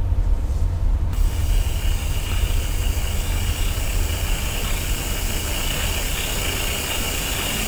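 A low steady rumble, joined about a second in by a steady hiss of recording noise from the nursery camera's microphone.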